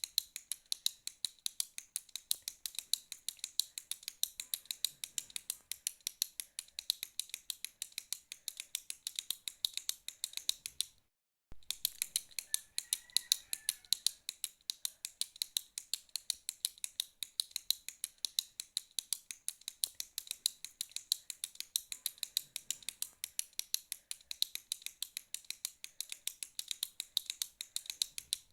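Retractable pen clicked repeatedly in a steady run of sharp, bright clicks, about four a second, with a short break about eleven seconds in.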